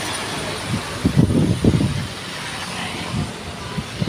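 Road traffic passing close by: a steady wash of engine and tyre noise from vehicles going by, with irregular low rumbles between about one and two seconds in.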